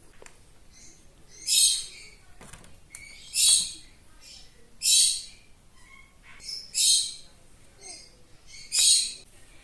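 Pet parrot screeching: five short, harsh, high-pitched squawks, one every one and a half to two seconds.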